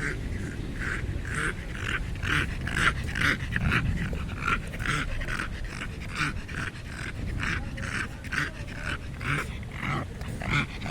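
A small, fat dog making pig-like snorting grunts in a steady run, about two a second.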